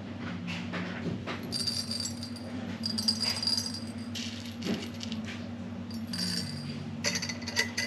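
Dried peppercorns poured from a container, rattling into jars in several short bursts, over a steady low hum.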